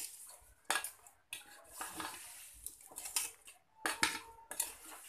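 Metal spoon stirring and scraping in an aluminium pot of chopped chicken and herbs: a string of irregular clinks and scrapes against the pot.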